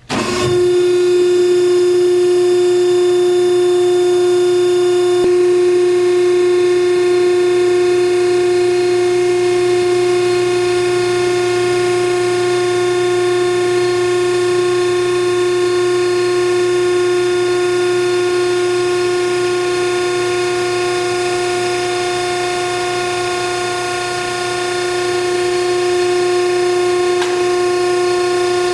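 Hydraulic power unit of a PTR vertical baler switching on and running with a steady, loud pitched whine.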